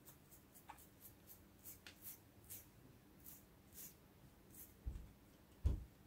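Toothbrush bristles being flicked with a finger to spatter watercolour paint onto paper: a run of short, high, scratchy flicks about two a second. Two low thumps come near the end, the second the loudest.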